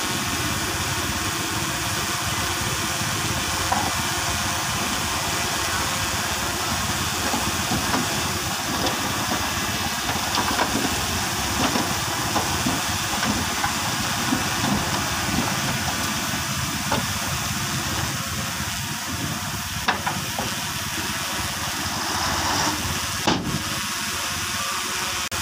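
Diesel engines of a crawler bulldozer and a dump truck running at work while the truck tips a load of soil, heard as a steady hissing rumble with scattered light clicks. Two sharper knocks come near the end.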